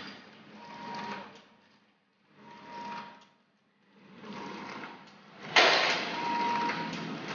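Vertical bag-packing machine running through its cycle about every two seconds, each cycle a mechanical swell with a brief steady tone. About two-thirds of the way in there is a sharp knock, and after it the machine noise is louder and continuous.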